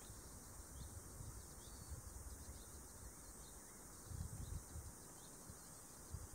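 Faint outdoor ambience: scattered faint bird chirps over a steady high hiss, with a few low rumbles on the microphone about four seconds in.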